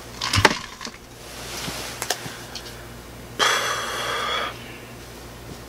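Bedding and pillow rustling with a few soft knocks as a person shifts and turns over on a bed, then a louder swish lasting about a second a little past halfway.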